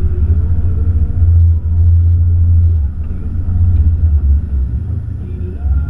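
Motorboat under way: a loud, low rumble of the boat's engine and wind buffeting the exposed bow-mounted microphone. The rumble eases a little about three seconds in.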